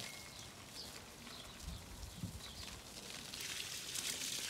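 Water from a garden hose pouring and splashing onto wet soil in a garden bed, starting about three and a half seconds in. Before that, faint background with a few soft low thumps.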